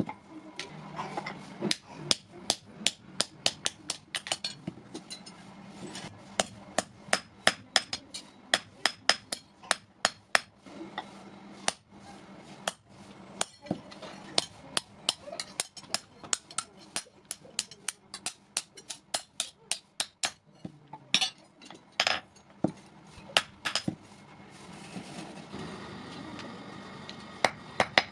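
Blacksmith's hammer striking iron in a long series of sharp, ringing metallic blows, about two to three a second, broken by a few short pauses.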